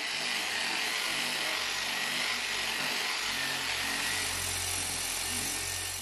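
Angle grinder with a wire cup brush scouring rust off a rusty metal typewriter panel: a steady, high scraping hiss over the motor's low hum.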